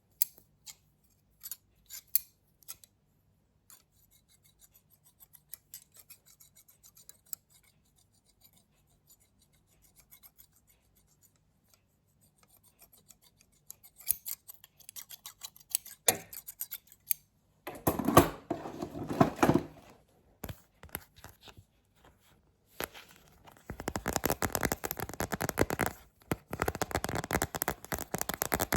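Close-up ASMR sounds: scattered light taps and clicks, then, from a little past halfway, dense scratching and rubbing right at the microphone in two long stretches.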